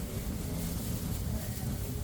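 Steady low rumble of a passenger jet's engines, with wind on the microphone.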